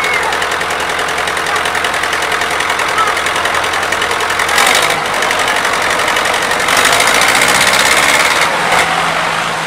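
Diesel engines of farm tractors and a loaded truck running under load together as the truck is towed out. The engines get louder about seven seconds in, as the truck starts to move, and the pitch rises near the end.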